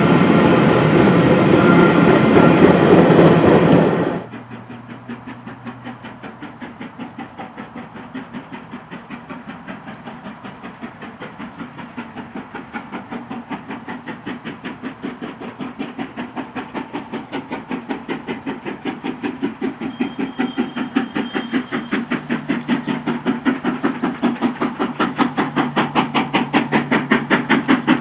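A steam locomotive working hard up a gradient, its exhaust beats a fast, even chuffing that grows steadily louder as it approaches. Before that, a loud passing train cuts off abruptly about four seconds in.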